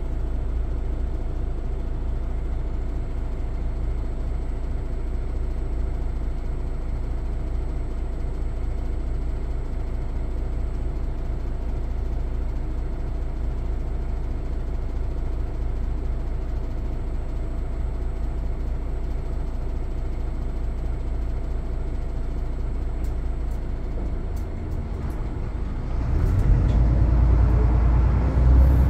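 Cabin running sound of a Mitsubishi Fuso Aero Star MP35 diesel city bus: a steady low engine and road drone, which grows louder with a rising engine note about 26 seconds in as the bus accelerates.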